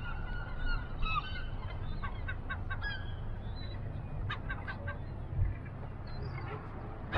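A flock of birds giving many short, overlapping calls, thickest in the first three seconds and again near the end, over a steady low rumble.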